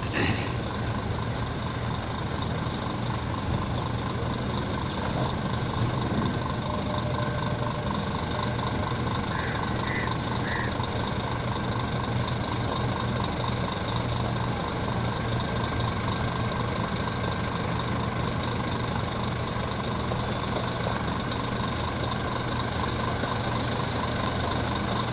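Scania G410 cement bulk tanker's diesel engine running steadily at low revs as the truck creeps down a slippery slope.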